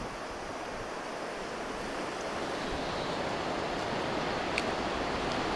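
Steady rushing wind, slowly growing a little louder, with a faint click about four and a half seconds in.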